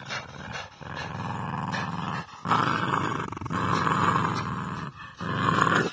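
An American Staffordshire terrier puppy and a Border terrier growling in play as they tug on a rope toy: long growls in about four stretches, with short breaks between them.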